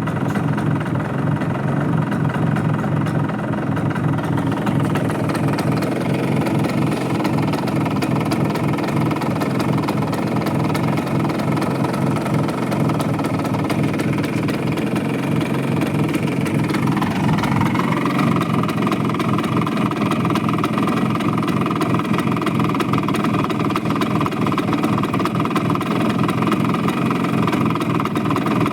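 Bajaj Chetak scooter engine idling steadily. About seventeen seconds in its note dips briefly, then settles again.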